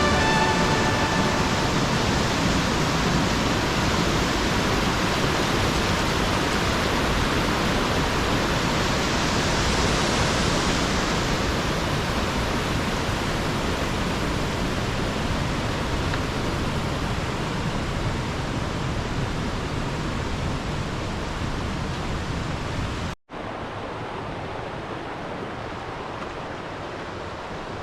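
Waterfall water rushing in a steady, even roar. Near the end it cuts out for a moment and resumes quieter.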